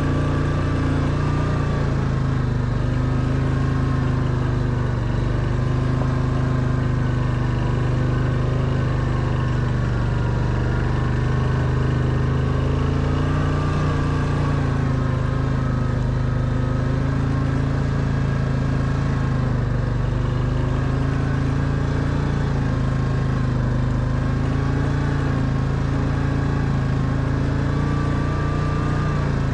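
Quad bike engine running steadily under load on a steep dirt-track climb, its pitch wavering a little with the throttle.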